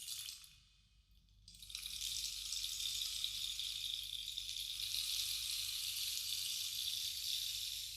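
Bamboo rainstick: small pebbles or beads trickling down inside the tube, making a soft, steady rain-like hiss. The first pour dies away just after the start; the stick is turned over and a new pour swells up within about two seconds and runs on until it fades near the end.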